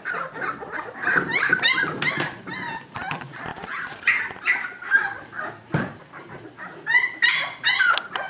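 Two-week-old Newfoundland puppies whimpering and squealing in many short, high cries that rise and fall, one after another. A dull knock comes about two thirds of the way through.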